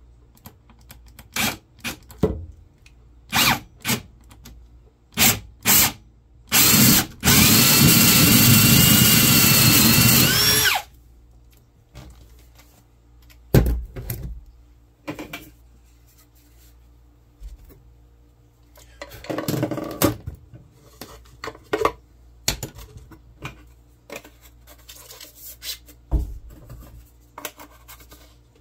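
Power drill boring a hole through a table top: several short bursts of the motor, then one steady run of about four seconds with a slightly rising whine that cuts off suddenly. Later comes a single sharp knock, then rubbing and handling noises.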